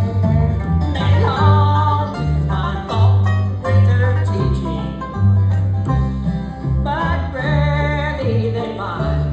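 Bluegrass band playing an instrumental break, with banjo and guitar over a steady bass line.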